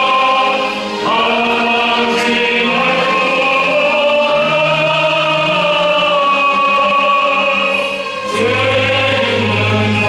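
Church choir singing a sacred piece with orchestral accompaniment, in long held phrases that break briefly about a second in and again near the end.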